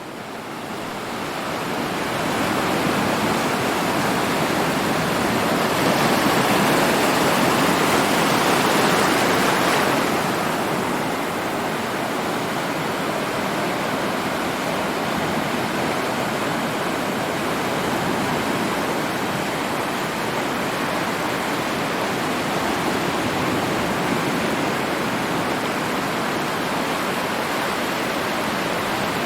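Ocean surf as a continuous, dense wash of breaking water, fading in over the first couple of seconds, loudest a few seconds in, then settling slightly quieter and steady.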